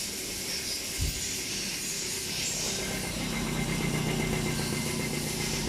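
A vehicle engine running, its steady low hum growing louder about three seconds in, over a constant hiss, with a single knock about a second in.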